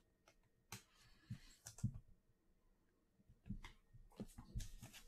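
Faint clicks and taps of trading cards being handled and set down on a tabletop, a few scattered at first and a quick cluster near the end.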